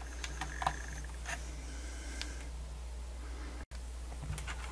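A few faint light clicks of hands handling a portable CD player's plastic case, over a steady low electrical hum, with a brief dead gap about three and a half seconds in.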